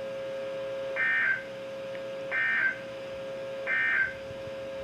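Emergency Alert System end-of-message data bursts: three short warbling digital squawks about 1.3 seconds apart, heard over a steady low tone.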